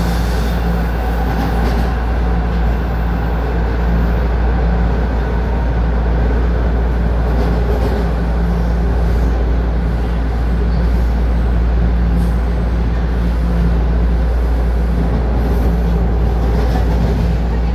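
TTC Line 1 subway train running between stations, heard from inside the car: a steady, loud rumble of wheels and running gear, with a low hum that comes and goes.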